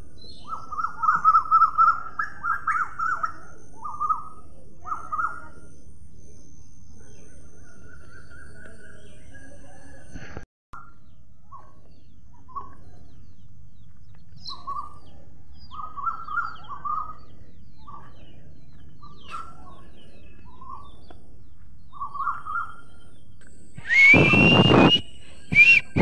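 Alexandrine parakeets giving short chirping calls in scattered bursts, with a louder, harsh screech near the end.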